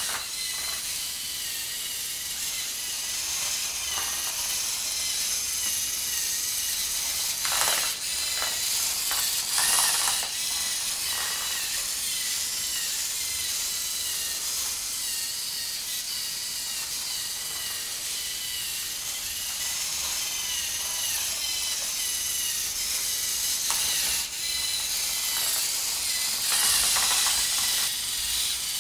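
LEGO Mindstorms NXT robot's servo motors and gear trains whirring as it drives and steers along a line, the whine wavering in pitch as the motors speed up and slow down, with a few louder stretches.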